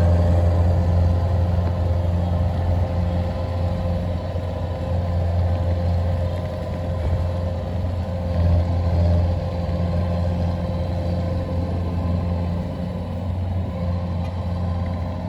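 Kubota DC-93 combine harvester's diesel engine running steadily while harvesting rice, a deep even drone with a steady whine above it.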